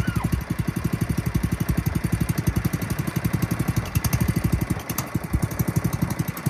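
Small gasoline engine of a portable water transfer pump running steadily, a fast even put-put.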